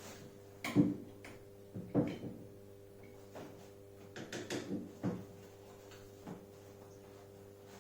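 Knocks and clatters of clamps being handled and set on a wooden chair frame to hold a glued back panel, the loudest about a second in and again about two seconds in, with a quick run of lighter knocks in the middle.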